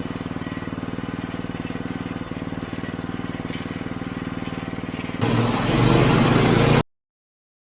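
Norwood portable bandsaw mill's engine running steadily at speed with an even pulsing beat; about five seconds in it turns louder and harsher as the band blade bites into the cedar log, then the sound cuts off suddenly.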